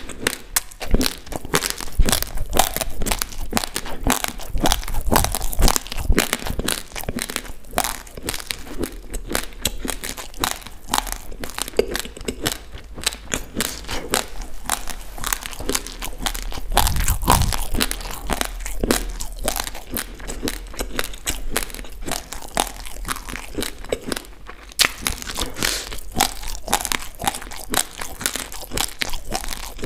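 Close-miked chewing of a mouthful of raw, uncooked basmati rice: a dense, unbroken run of hard, gritty crunches, several a second, as the dry grains are ground between the teeth.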